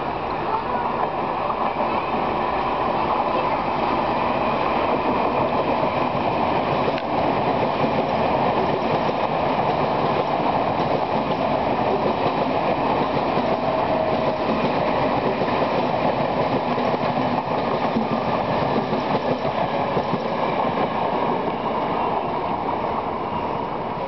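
Mumbai suburban local train, an electric multiple unit, passing on the tracks with the steady running noise of its wheels on the rails. It swells just after the start and eases off a little near the end as the train moves away.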